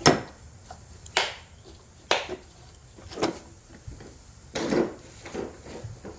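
A series of knocks and clunks, about one a second, the first the loudest, from hard parts and tools being handled while a pressure washer's engine and frame are taken apart.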